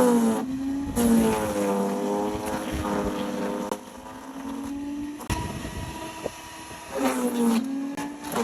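Wood chipper engine running under load, its pitch sagging and recovering several times as material is fed in, with a few short sharp cracks.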